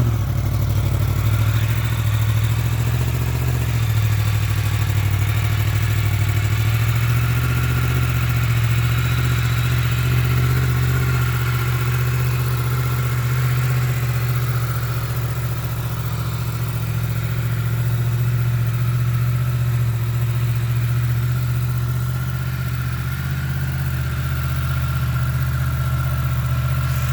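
2019 Yamaha MT-10's crossplane inline-four idling steadily through its stock exhaust and catalytic converter just after a cold start. The idle steps slightly lower near the end.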